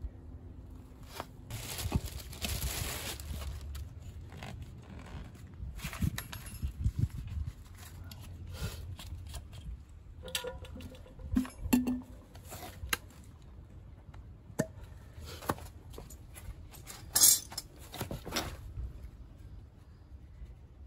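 Hands working with tools, rags and small metal parts: scattered clinks, taps and rustling, with a sharp clatter about 17 seconds in.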